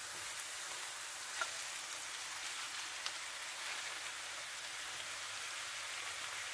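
Diced onions and freshly added raw minced meat frying in oil in a pan: a steady sizzle, with a couple of faint clicks.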